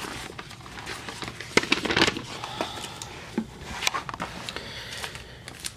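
Paper and old candy wrappers rustling and crinkling as they are handled and shuffled, with irregular sharp crackles, the loudest about two seconds in.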